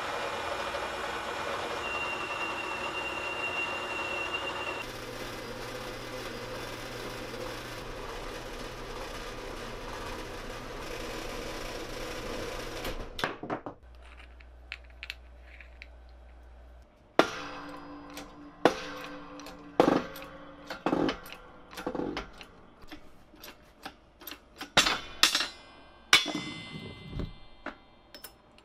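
Metal lathe running while a twist drill bores into a steel collar blank, with a steady machining noise and a thin high whine for a few seconds near the start. After a break, about ten sharp metallic knocks ring out at uneven intervals.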